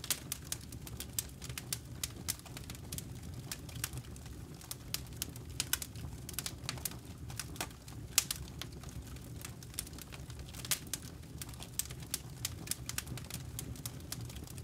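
Wood campfire crackling and popping with irregular sharp snaps, several a second, over a low steady background.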